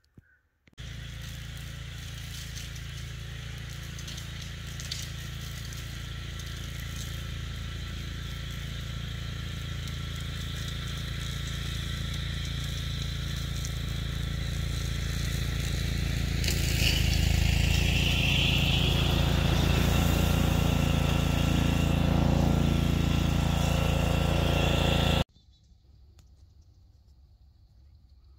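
An engine running with a steady low rumble that grows gradually louder. About two-thirds of the way through, a whine rises in pitch as the engine works harder, and the sound cuts off abruptly near the end.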